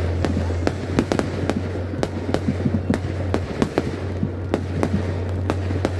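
Aerial fireworks going off: many sharp cracks and pops, several a second and irregularly spaced, over a steady low hum.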